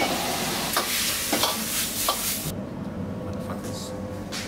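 Stir-fry sizzling in a wok over a gas flame, with a few sharp clinks of metal against the wok. After about two and a half seconds the sizzle drops away to a quieter background.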